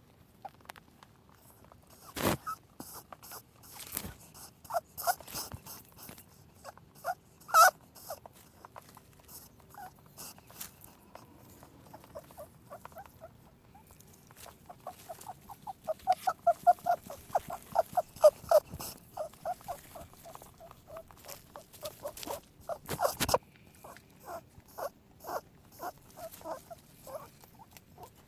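Small animal sounds: runs of short, quick chirping or clucking calls, mixed with sharp clicks and rustling. The calls come thickest about halfway through and again near the end.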